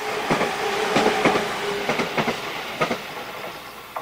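Stainless-steel JR Central local electric train passing close by: wheels clacking over rail joints in quick pairs, over a steady tone.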